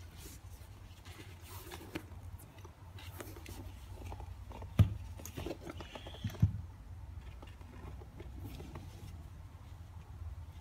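Handling noise of a canvas-and-leather messenger bag being turned over in gloved hands: rustling and scraping, with a few sharp clicks and knocks, the loudest about five and six and a half seconds in, over a steady low hum.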